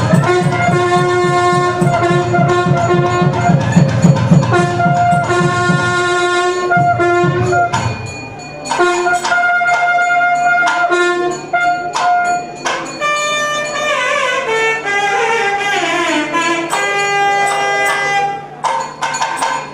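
Traditional temple music: a reed wind instrument plays a held, gliding melody over drums; about eight seconds in the drums drop away, leaving the melody over a steady low drone.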